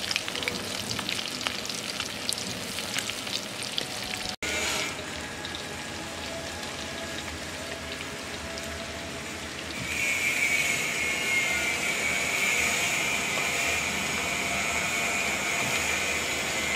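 Battered fish deep-frying in hot oil in a wok, sizzling with dense crackles. After a cut about four seconds in the sizzle is softer, and at about ten seconds a steady high-pitched hiss joins it and holds.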